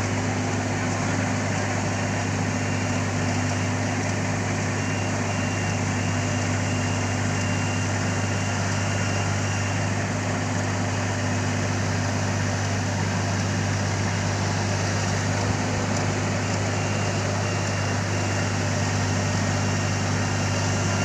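Kubota DC-35 combine harvester's diesel engine running steadily at constant speed, a loud even low hum.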